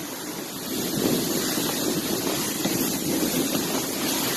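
Steady rushing noise of a sled gliding over snow behind a trotting pony, with wind buffeting the microphone.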